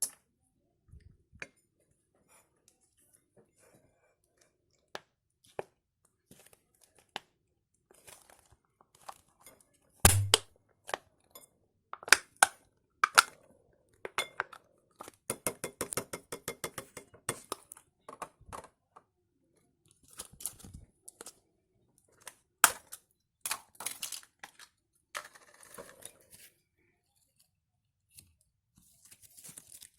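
Scattered clicks, clinks and knocks of small containers and utensils being handled while making slime, with one louder knock about ten seconds in. In the middle comes a run of rapid strokes, as of stirring in a bowl.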